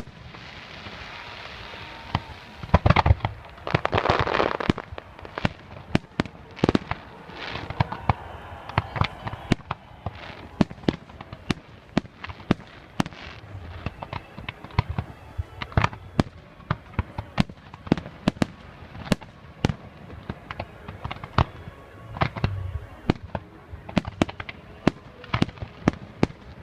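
Fireworks display: a continuous run of sharp bangs from bursting shells, with a loud dense volley and crackling about three seconds in, then steady bangs every fraction of a second.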